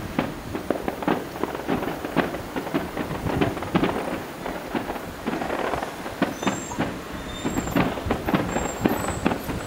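Aerial fireworks going off at a distance: a dense, irregular stream of bangs and pops, several a second.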